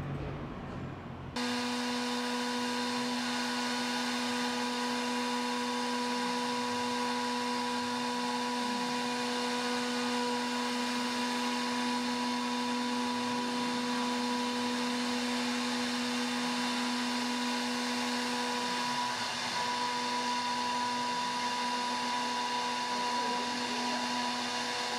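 CNC router spindle running at speed while it mills into a wooden board: a steady high motor whine that starts suddenly about a second and a half in, with faint low rising and falling tones underneath.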